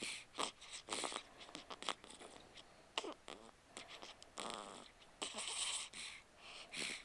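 An 8-day-old newborn baby snoring and snorting through the nose in sleep: quick, irregular noisy breaths, with one longer sound about four and a half seconds in.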